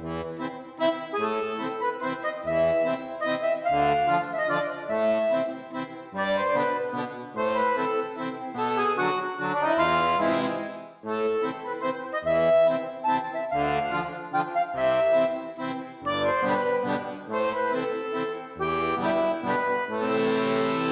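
Background music led by an accordion, a lively tune with a steady bass beat.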